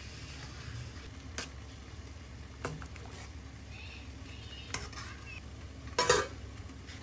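Metal utensils clink lightly against a stainless steel stockpot, a few separate clinks, as miso is whisked in a ladle and the soup is stirred. About six seconds in, the pot's stainless steel lid is set on with a louder clatter.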